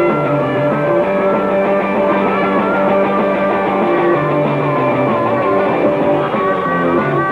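Rock band playing an instrumental stretch: electric guitar, bass and drums, with a harmonica playing held, bending notes over the beat.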